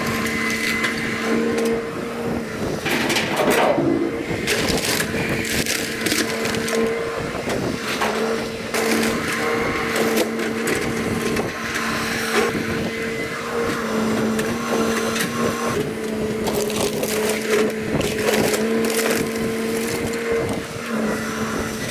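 Excavator engine running steadily while the machine grabs and crushes wooden demolition debris, with repeated irregular cracking, splintering and crashing of wood as the debris is loaded into a dumpster.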